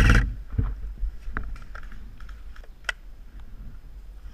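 A full-auto burst from an airsoft electric gun cuts off just after the start, followed by scattered light clicks and knocks.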